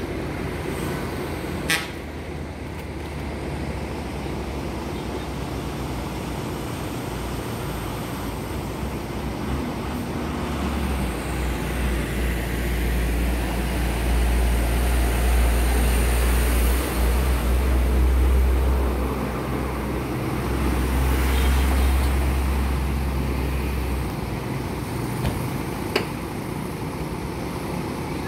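Sleeper coach's diesel engine running close by: a deep, low rumble that swells louder from about ten seconds in and eases back after about twenty-four seconds. There is a sharp click near the start and another near the end.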